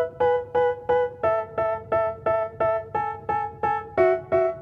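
Background music: an electric-piano-like keyboard playing repeated chords, about three strokes a second, the chord changing about a second in and again near the end.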